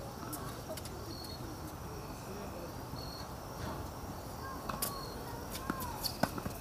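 Tennis ball struck by racquets and bouncing on a hard court: a few sharp pocks in the second half, over a steady outdoor background with short high chirps.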